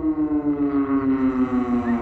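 Hörmann ECI-DT 1200 electronic siren sounding the German 'Feueralarm' fire-alarm test signal. Its tone slowly falls in pitch, with a regular pulsing in loudness.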